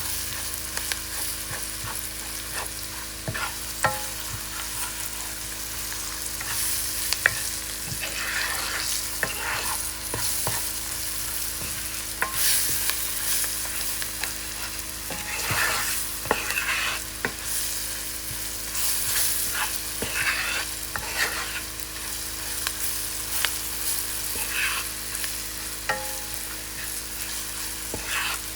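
Curry powder and spices frying in hot oil in a pot, sizzling steadily while being stirred, with irregular scrapes and taps against the pot. This is the 'burning the curry' stage, toasting the curry in oil before the meat is added.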